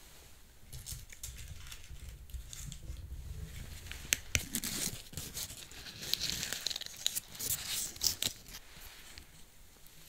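Pleated paper baking liner of an egg tart crinkling and tearing as it is peeled off the tart, in irregular crackles and rustles that are densest in the middle of the stretch.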